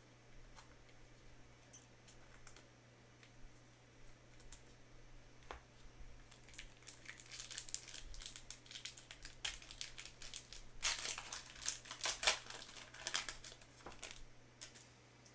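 Foil wrapper of a trading-card pack crackling and tearing as gloved hands rip it open, after a few faint clicks of cards being handled. The crinkling builds from about halfway through and is loudest shortly before the end.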